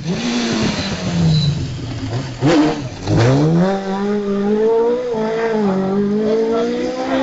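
Legends car's Yamaha four-cylinder motorcycle engine slowing for a hairpin with its revs falling, then about three seconds in climbing hard as it accelerates away, with short dips in pitch as it shifts up. A few sharp crackles come at the bottom of the rev dip.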